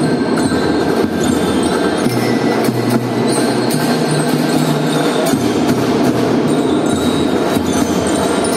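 Children's marching drum band playing live: a dense, steady band sound with held low notes that change every second or so, ringing high tones and frequent percussion hits.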